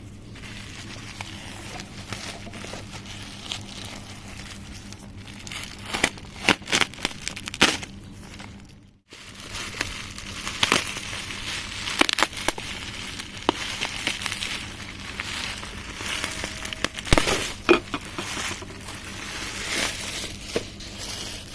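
Plastic packaging crinkling and rustling as it is handled, with scattered clicks and knocks. The sound breaks off completely for a moment about nine seconds in.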